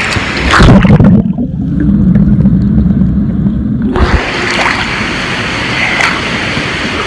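Microphone plunging underwater in a swimming pool with a splash about half a second in, followed by about three seconds of muffled low underwater rumble. It breaks the surface about four seconds in, back to the steady noise of the pool water.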